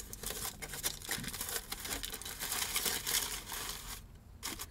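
Aluminium foil crinkling and crackling as it is folded and pressed around leftover food, in quick busy bursts that ease off about four seconds in.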